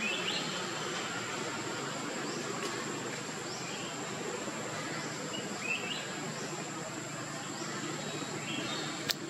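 Forest ambience: a steady high insect drone over a low hiss, with short rising chirps every second or so. A single sharp click comes near the end.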